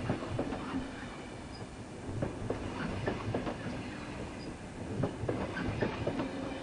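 A train running past on the track, its wheels giving an irregular clatter of knocks and clicks over a steady rumble.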